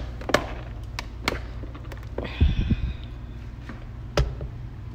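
Plastic clicks and knocks of a food processor's lid and bowl being handled and fitted together, with a short rustle and thudding about halfway through, over a steady low hum.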